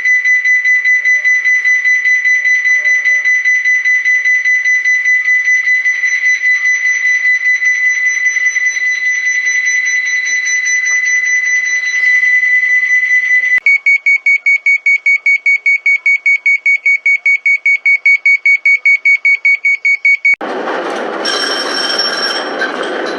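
Electronic warning buzzers of a Japanese commuter train or railcar: a steady high buzzing tone with a fast flutter, then about 13 seconds in a slightly higher tone beeping rapidly, about six beeps a second. About 20 seconds in the beeping stops and gives way to a louder mixed noise.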